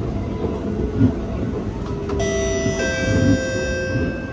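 SMRT R151 metro train running, with low knocks recurring about every one to two seconds. About halfway through, a high ringing tone made of several steady pitches sets in and holds.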